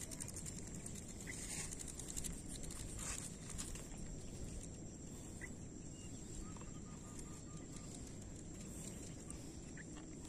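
Quiet riverbank ambience: a low rumble of wind on the microphone under a thin steady high tone, with a bird giving a quick run of about eight short notes a little past the middle and a few single chirps.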